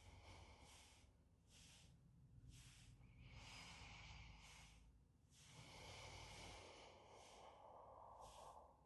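Faint breathing with soft rustling, as a person lying on a yoga mat rocks side to side with knees hugged to the chest; two longer, louder breaths in the second half.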